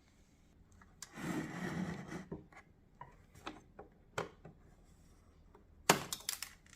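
Handling noises from work on a headlight assembly: a scraping rub lasting about a second, then scattered light clicks and a short flurry of knocks near the end.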